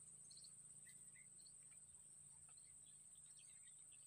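Near silence: a faint, steady high-pitched insect trill, with a few faint bird chirps.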